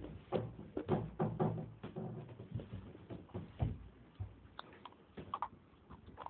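A thin hard piece scraping the top of a grey clay block: a quick run of short scratchy strokes, densest in the first few seconds, then sparser.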